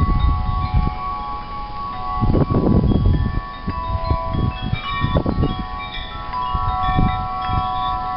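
Wind chimes ringing, many overlapping sustained tones of different pitches struck again and again, with intermittent low rumbling surges underneath.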